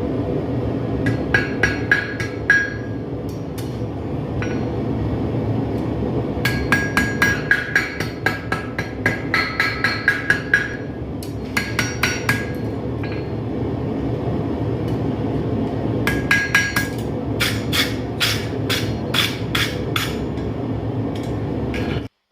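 Blacksmith's hammer striking steel on an anvil in several quick runs of blows, each strike ringing, over a steady low rumble that cuts off suddenly near the end.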